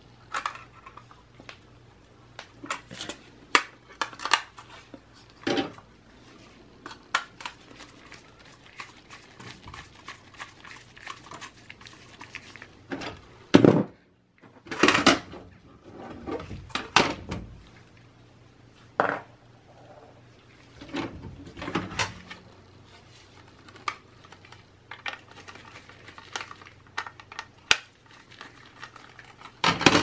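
Irregular clicks, knocks and light clinks of a blue plastic drive caddy, a solid-state drive and its small screws being handled and fitted together.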